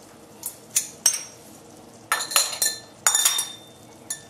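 Stainless steel jam funnel clinking against the rims of glass jars as it is set on and moved: a series of sharp metal-on-glass clinks, some with a short ringing tone.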